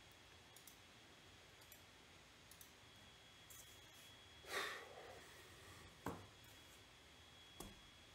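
Near silence with room tone. A few faint clicks, a short breathy noise about four and a half seconds in, and a faint steady high whine starting about three seconds in.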